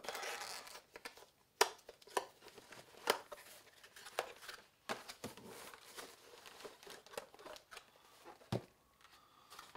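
Cardboard product box being opened by hand: a printed card sleeve pulled apart and a white inner box slid out of it, with rustling and scraping of card and scattered sharp clicks and snaps.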